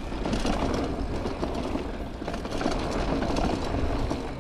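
Mountain bike rolling along a packed dirt trail: a steady rumble of the tyres on the ground, with a busy rattle of small clicks from the bike.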